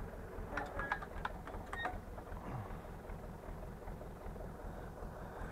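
Tractor engine running steadily with a low throb while it pulls a finger-wheel hay rake over cut grass. A few sharp metal clicks and rattles from the rake in the first two seconds.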